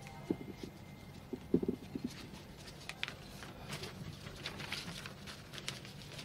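Low room tone with scattered soft knocks and clicks, the loudest a short cluster about a second and a half in, followed by light high-pitched ticks and rustles.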